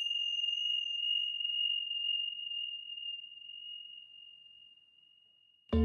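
A small metal chime struck once: one high, clear ringing tone that fades slowly over about five seconds. Right at the end a much louder, deeper struck metal ring with many tones cuts in.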